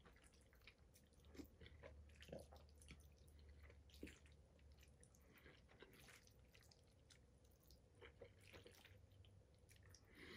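Near silence: faint chewing of pasta with a few scattered soft clicks of a fork against a metal bowl.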